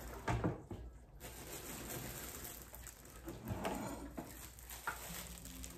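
Handling of a new Cosori air fryer's pull-out basket, with a light knock about half a second in, then faint rustling of the plastic wrap packed inside it and a few small clicks.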